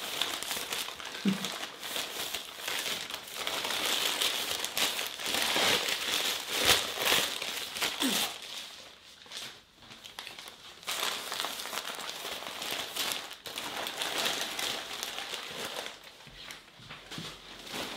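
Sheets of newspaper crackling and rustling as they are unwrapped from a bundle of vegetables and crumpled into a ball by hand, on and off, with a short lull about ten seconds in.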